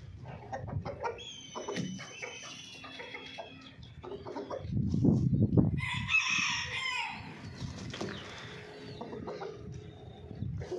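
Chickens clucking, with a long crowing call about six seconds in, just after a loud burst of low rumbling noise.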